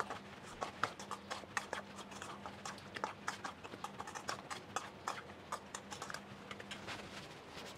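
Metal spoon and hand tossing sauced chicken wings in a stainless steel mixing bowl: many light, irregular clicks and clinks of the spoon against the bowl, with soft wet handling of the meat.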